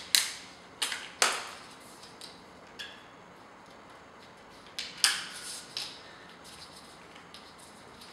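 Tin snips cutting through a Trim-Tex PVC plastic chamfer bead offcut, each bite a sharp snap. Several snips come in the first second and a half and a few more around five seconds in, with fainter clicks after.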